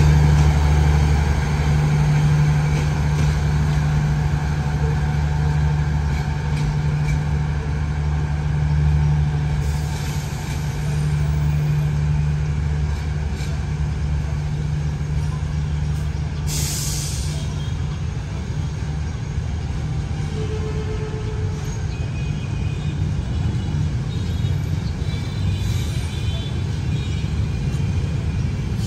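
D19E diesel-electric locomotive's engine running with a steady low hum that slowly weakens, with a short hiss of compressed air about halfway through.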